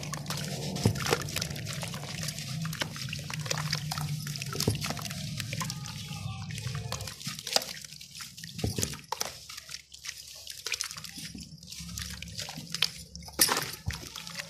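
Wet sand-and-cement chunk crumbling apart by hand into a tub of water, with gritty crackling, splashing and dripping. Sharper splashes come now and then, the loudest near the end.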